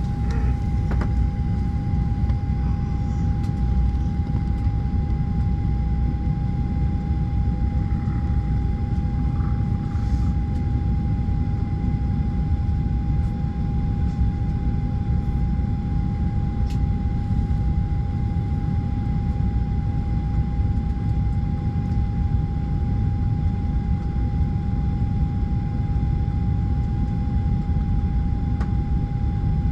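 Airliner cabin noise from a Southwest Boeing 737: a steady low rumble of engines and airflow with a constant whine over it.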